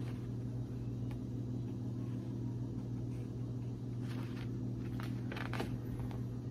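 A steady low hum in the room, with a few faint rustles of Bible pages being handled about four and five seconds in.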